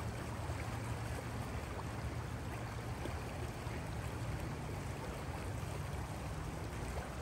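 Steady rushing of a flowing river, with a low rumble underneath.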